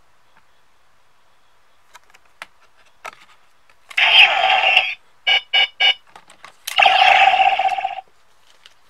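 DX Decadriver toy transformation belt: light plastic clicks as a card is loaded, then a loud electronic sound effect about a second long, three short beeps, and a second loud electronic burst.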